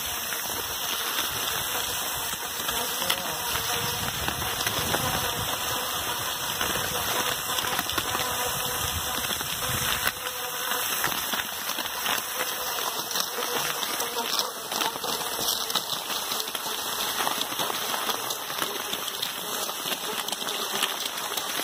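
Continuous crunching and crackling of footsteps on packed snow, with rustling on the microphone.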